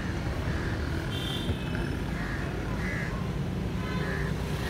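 Street background noise: a steady low rumble, with short high-pitched calls repeating every half second to a second and one higher call about a second in.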